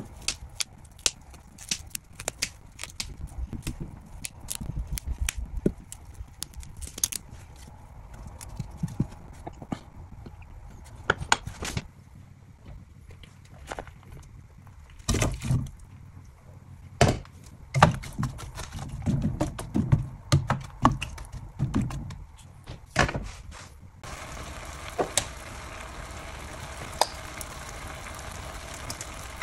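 Broccoli cut and broken into florets on a wooden cutting board, with repeated sharp taps and knocks of knife and stalks on the board, then handling thumps as the florets go into a frying pan. In the last few seconds a steady sizzle starts as the broccoli heats in the pan of soy-based sauce.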